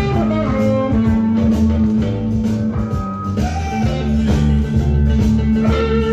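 Electric blues: a hollow-body electric guitar playing lead lines with bent notes over a recorded blues band with bass and drums.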